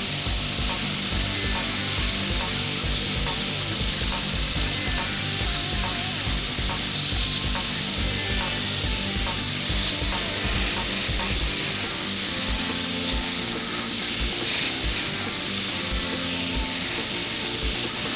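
Belt grinder running, with a steel knife blank cut from an old saw blade pressed against the moving belt: a steady grinding hiss as the annealed blank is ground to shape.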